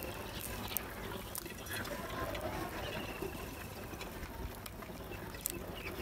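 House crows pecking grain from clay bowls and the concrete floor: scattered sharp beak taps over a steady outdoor hiss, with a faint bird call about three seconds in.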